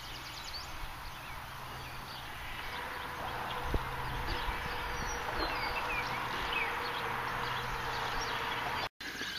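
Outdoor ambience: birds chirping over a steady rush of noise and a low hum, with a single knock a little under four seconds in. The sound cuts out briefly near the end.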